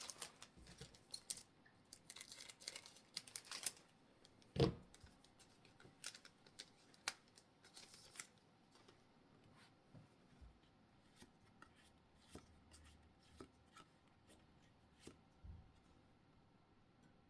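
Faint crinkling and clicking of Pokémon booster-pack wrappers and cards being handled, busiest in the first few seconds, with one sharper knock about four and a half seconds in.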